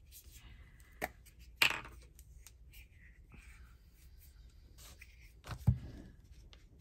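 Paper and craft materials handled on a tabletop: a few sharp taps and knocks, the loudest two about a second and a half and five and a half seconds in, with light paper rustling between.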